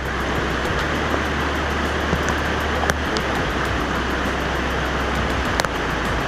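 Clear mountain river rushing and splashing over boulders in a steady, loud rush of water. There is a sharp knock about three seconds in and another near the end.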